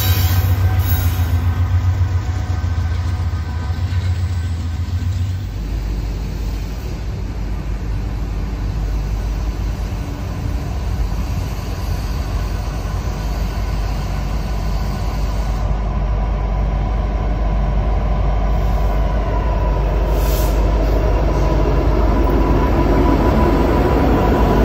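Norfolk Southern freight trains on the move. For the first five seconds or so a train of autorack cars runs past close by with a strong low hum, then the sound changes abruptly to a second freight approaching, its diesel locomotives growing steadily louder as they draw near toward the end.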